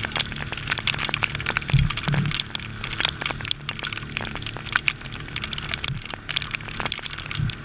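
Dense, irregular sharp clicks of rain and spray striking the camera housing on a heeling sailboat, over a low rumble.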